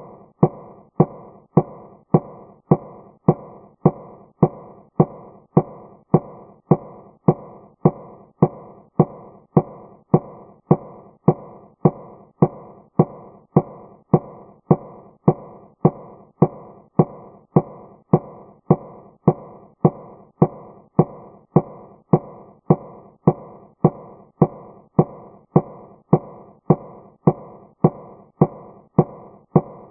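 Large metal door knocker striking a large wooden door over and over in a steady rhythm of just under two knocks a second, each knock with a short ringing decay.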